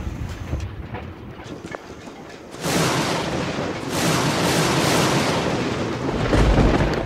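Thunder in a storm: a low rumble, then a loud crash about two and a half seconds in that rolls on, with a deeper boom near the end.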